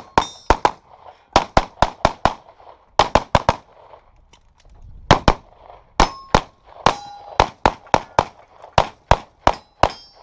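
Handgun shots fired fast in strings of two to four, with short pauses between strings as the shooter moves through a practical pistol stage. Several shots are followed by the brief ring of steel targets being hit.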